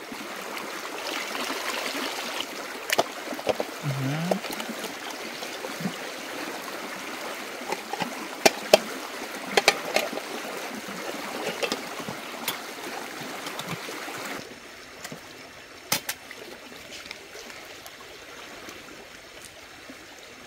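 Steady rush of flowing water with scattered light knocks and clicks. About fourteen seconds in it drops to a quieter, duller rush.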